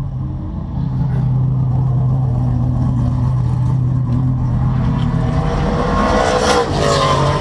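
Race car engine idling steadily in the cockpit, while another stock car drives past close by about five to seven seconds in, its engine rising in pitch as it passes.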